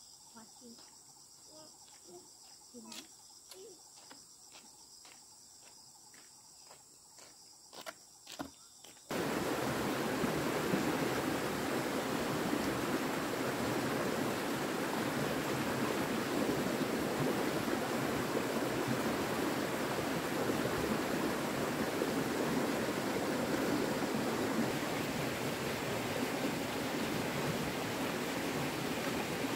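Steady, even rush of running water, starting abruptly about nine seconds in. Before it there are only faint scattered ticks and clicks.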